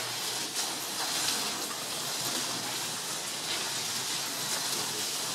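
Slot cars running laps on a wooden track, a steady hiss of their small electric motors and wheels on the wood.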